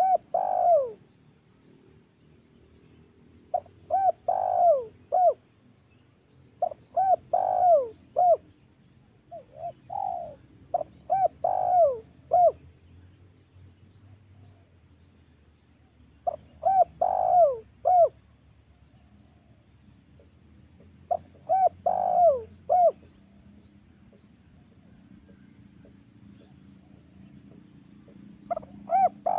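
Spotted dove (tekukur) cooing: about seven phrases of several gliding coos each, repeated every few seconds with pauses between them.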